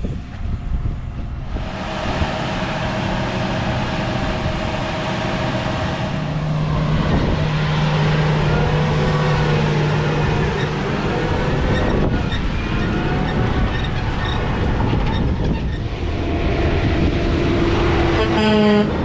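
Heavy harvest machinery running steadily, a dense mechanical drone with held humming and whining tones that shift as the sound changes about a second and a half in and again around twelve seconds. Near the end a short whine rises quickly in pitch.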